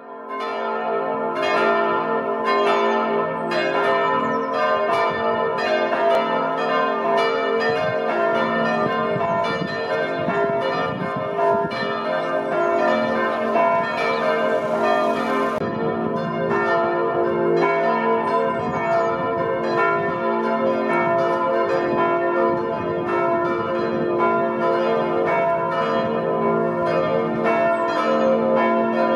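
Church bells ringing together: a full peal of several bells from a church tower, struck over and over, their long ringing tones overlapping without a break. The peal fades in at the start.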